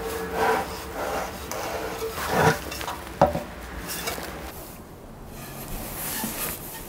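Terracotta pot being turned and tipped over on a wooden bench, the clay scraping and knocking against the wood, with a few sharper knocks in the first half.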